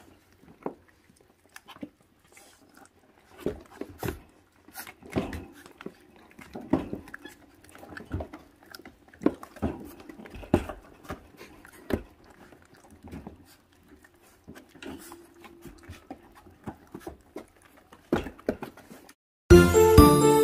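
Four-week-old puppies tearing and chewing at raw meat on the bone: irregular wet smacks, clicks and tugging noises, with a few small whimpers. Loud music starts abruptly near the end.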